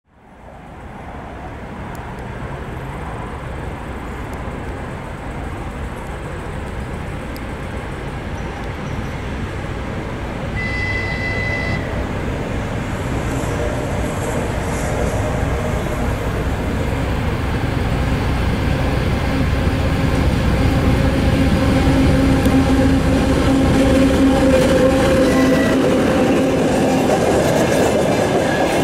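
ChME3 diesel-electric shunting locomotive approaching and passing with a freight train, its diesel engine growing steadily louder as it nears. One short, high-pitched horn blast sounds about eleven seconds in. Near the end, hopper wagons roll past with wheels clattering over the rail joints.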